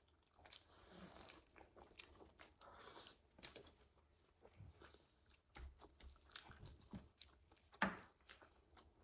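A person chewing and biting food, a faint run of small wet clicks and crunches, with one louder bite a little before the end.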